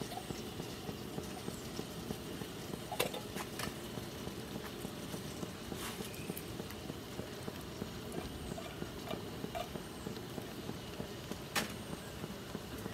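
Canned baked beans being tipped out of the tin and scraped into a pot with a wooden spoon. There are a handful of sharp knocks of spoon and can against the pot, the loudest about three seconds in, over a steady low sizzle from the pan.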